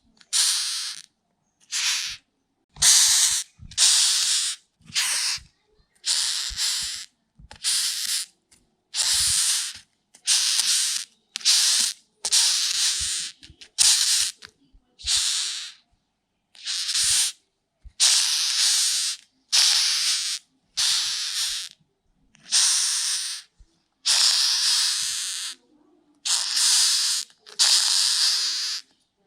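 Rhinoceros beetle hissing: a long run of short, dry hisses, roughly one a second, each cut off sharply with brief silences between.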